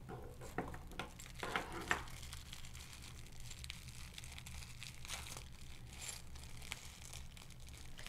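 Faint crinkling and rustling of a small packaging bag of lock hardware being handled and opened, with a few soft clicks.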